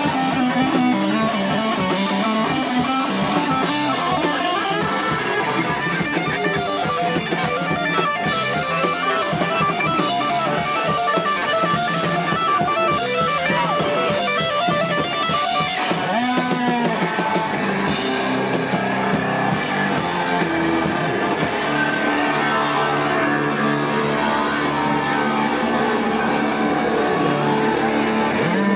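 Live rock band playing an instrumental passage: distorted electric guitars over a drum kit, loud and continuous.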